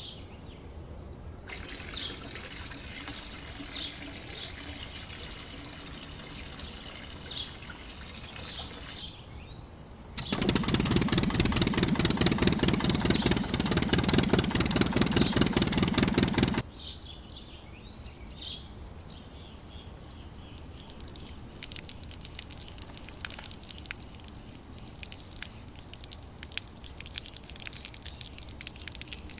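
Birds chirping in the background while wet cement slurry trickles from a toy mixer tank's spout. From about ten seconds in, a small motor runs loudly for about six seconds with a fast, even rattle, then cuts off sharply.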